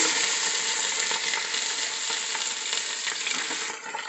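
Marinated chicken pieces sizzling as they hit hot oil in a steel pot, a dense frying hiss that dies down a little near the end.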